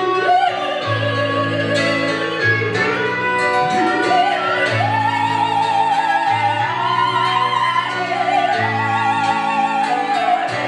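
Operatic female voice singing long held notes with wide vibrato, the line rising in pitch, accompanied by piano and guitar with low notes sounding about every second and a half.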